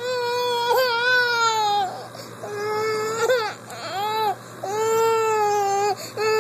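Infant crying in a series of long wails, about five in all with short breaths between them; the crying is from teething discomfort.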